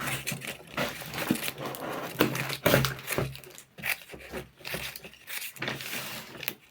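Packaging crinkling and rustling, with irregular light knocks, as a box of items is handled and closed.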